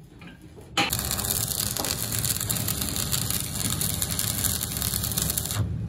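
Stick (arc) welding on steel plate: about a second in, the electrode strikes an arc. It burns with a steady crackling hiss for nearly five seconds, then stops abruptly as the arc is broken.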